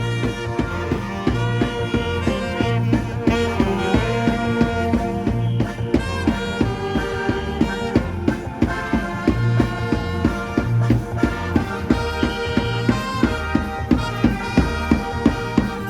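Funeral band music: brass melody over a steady, regular drum beat.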